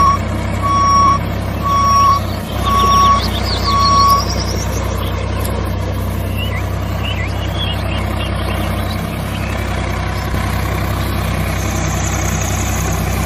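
Heavy diesel vehicle engine running steadily with a low drone, like a tractor. A reversing alarm beeps five times in the first four seconds, about one beep a second.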